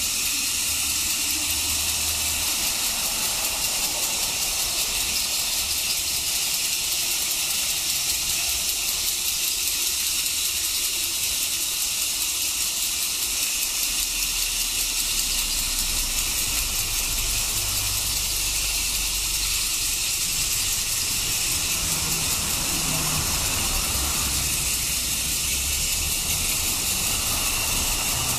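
Two battery-powered TOMY Plarail toy steam locomotives running on plastic track, their built-in clickers clicking rapidly as they move, heard as a steady dense hiss.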